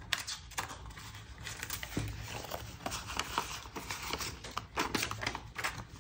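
US dollar bills rustling and crinkling as they are handled and shuffled by hand: a string of irregular, crisp rustles with small snaps.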